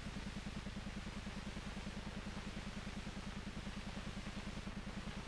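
A steady, low rhythmic putter, about nine beats a second, holding unchanged throughout.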